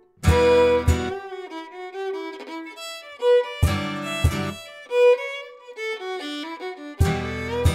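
Instrumental background music: a sustained melody line over full chords struck four times.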